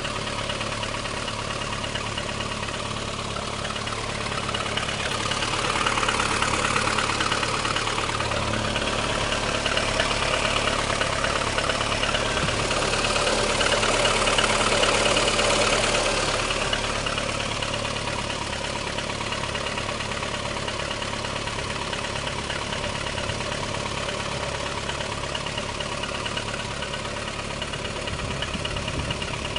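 Lada Kalina engine idling cold with a fast knocking running through it, the knock that shows up only when the engine is cold. It grows louder for a few seconds twice.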